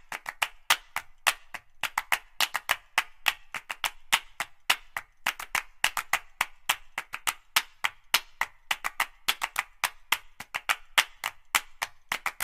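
Percussive background music made only of rapid dry clicks like wood-block taps, about five a second in an uneven pattern, with no melody.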